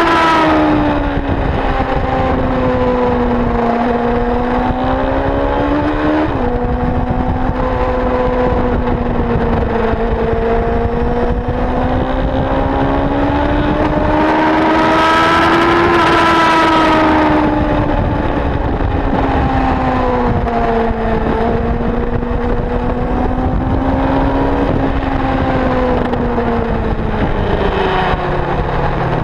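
Motorcycle engine heard onboard at track speed, its revs rising and falling through the gears with wind rush over the microphone. There is a sudden drop in pitch about six seconds in, a long climb to a peak about halfway through, and the revs fall away near the end.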